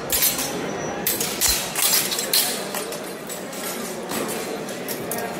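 Steel longsword trainers clashing and clinking in irregular, overlapping strikes from many sparring bouts at once, over background talk.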